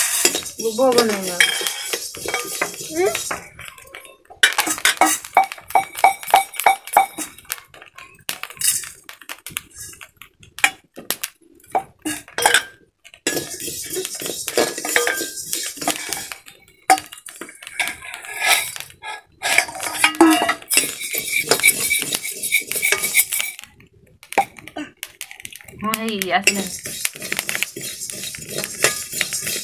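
A metal spoon scraping and clinking against a metal wok as rice is dry-roasted and stirred over a wood fire, the grains rattling and hissing in the hot pan. The stirring comes in runs of a few seconds with short pauses between them.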